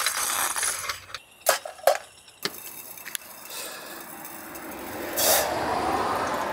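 A butane camp stove's flame hissing, then a few sharp clicks and knocks of handling, then water poured out of a plastic bottle, splashing and gurgling.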